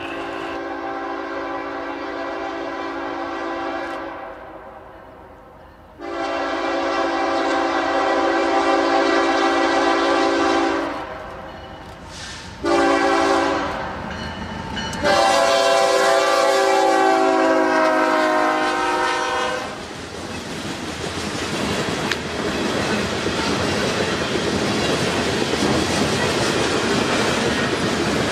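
Freight locomotive air horn sounding the grade-crossing signal: two long blasts, a short one and a final long one. The train's wheels then run steadily past on the rails.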